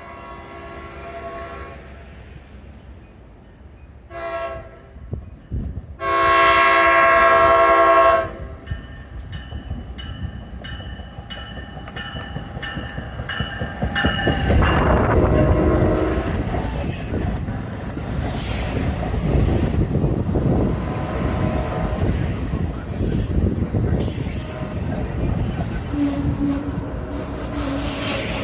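NJ Transit train sounding the horn on its MultiLevel cab car: a fainter long blast, a short blast about four seconds in, then a loud long blast. The train then rolls in with a rising rumble, and in the last third its wheels and brakes squeal as it slows into the station.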